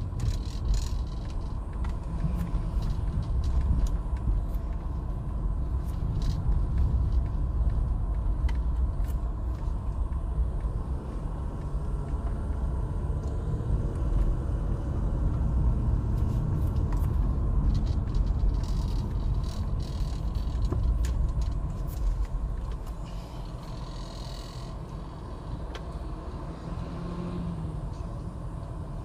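Steady rumble of engine and tyres heard from inside a moving car, growing quieter over the last several seconds as the car slows to a stop.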